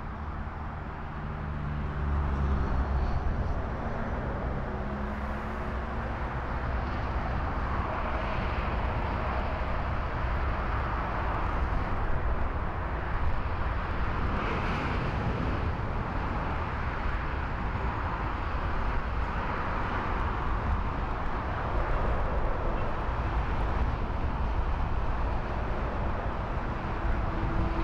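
Steady, continuous roar of distant jet airliner engines across an airfield, with a low rumble underneath. A faint humming engine note can be heard in the first few seconds.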